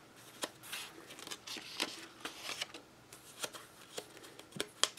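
Paper pages of a ring-bound handmade journal being handled and turned: faint paper rustling with scattered light taps and clicks.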